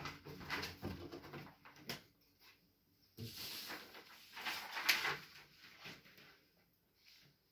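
Last upright-piano notes dying away, then sheet-music paper rustling and crackling for about two seconds as the pages are handled and turned.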